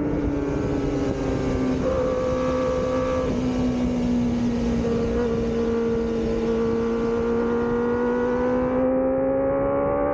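Kawasaki ZX-25R's 249 cc inline-four running at high revs on track, heard from the rider's seat. The engine note sinks slowly as the bike slows, then climbs again as it accelerates out near the end.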